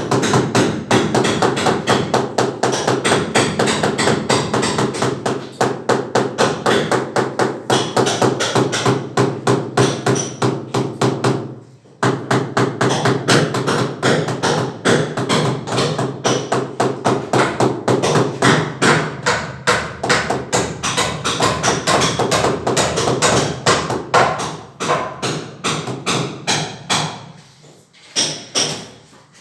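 Mallet tapping tiles to bed them into tile adhesive: a fast run of sharp taps, several a second, pausing briefly about twelve seconds in and thinning out near the end.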